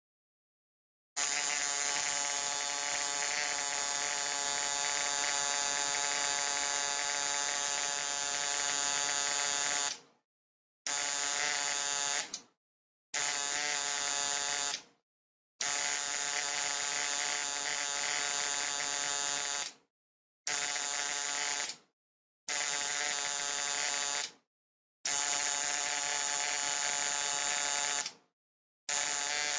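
Low-voltage electric arc buzzing, starting about a second in. One long steady buzz of about nine seconds, then seven shorter arcs of one to four seconds each with brief silences between, each starting suddenly and dying away quickly.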